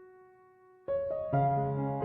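Slow, gentle solo piano music: a held chord fades almost to nothing, then new notes are struck about a second in and a fuller chord with bass follows.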